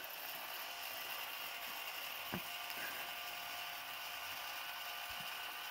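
Yaesu G-800 antenna rotator turning under power: a faint, steady mechanical whir, with a single sharp click about two and a half seconds in.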